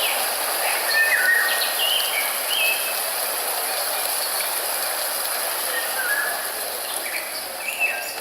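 Birds calling with short whistled notes and chirps over a steady hiss. The calls come in a cluster about a second in and again near the end.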